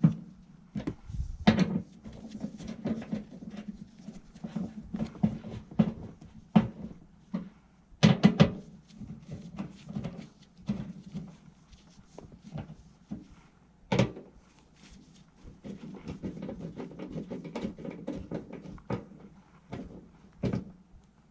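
Sheet-metal clanks, knocks and tool clicks of motor-mount brackets being fastened back onto a blower housing, with a sharp knock about 8 s in and another about 14 s in.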